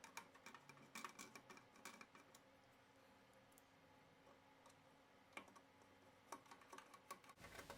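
Near silence with scattered faint clicks and ticks, a few in quick runs in the first two seconds and again in the last couple of seconds.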